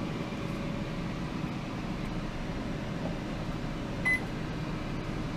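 Kitchen appliances running with a steady hum, and a single short electronic beep from the microwave's keypad about four seconds in.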